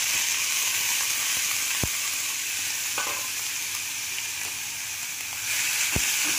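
Grated beetroot sizzling as it fries in hot oil in a kadai. The sizzle swells again near the end as the ladle stirs it, with a couple of sharp knocks of the ladle against the pan.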